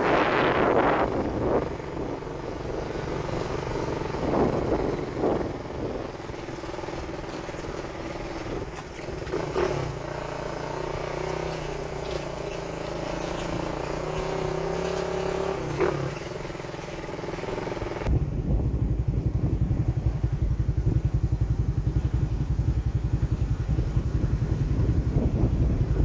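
Motorcycle engine running during a ride, with a few clicks and knocks. About two-thirds of the way through, the sound changes suddenly to a heavy low wind rumble buffeting the microphone.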